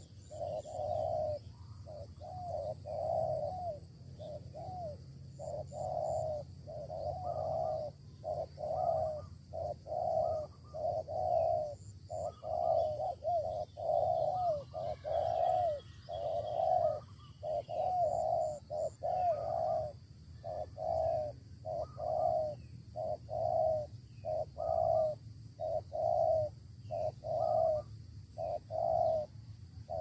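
Spotted doves cooing, their repeated coo phrases following one another with hardly a break.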